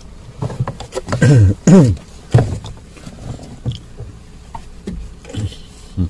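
Plastic lower dashboard trim panel being handled and fitted up under the dash, with knocks, clicks and scrapes of plastic. It is loudest about a second in, where two drawn-out sounds fall in pitch.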